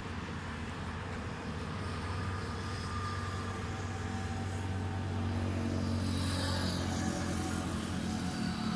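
An engine running with a steady low hum that grows a little louder in the second half.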